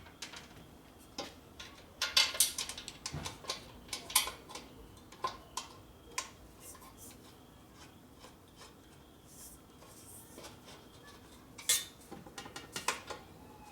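Metal clinks and clanks of a motorcycle gas tank being laid back onto the frame for a test fit, a busy cluster of knocks about two seconds in and a few more near the end.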